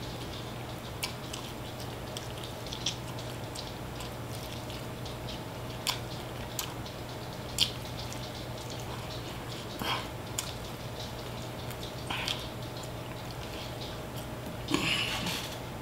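Close-up mouth sounds of a person eating spicy fried chicken drumsticks: scattered short wet clicks and smacks of biting and chewing, with a longer rustling burst near the end, over a steady low hum.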